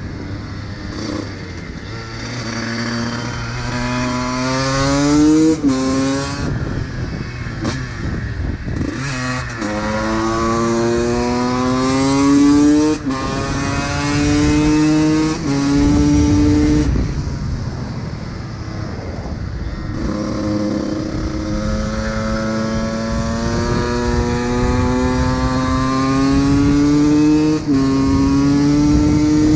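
Honda CR125's single-cylinder two-stroke engine being ridden hard, accelerating through the gears: the pitch climbs, then drops at each upshift, over and over, with a brief easing off past the halfway point before it pulls up again.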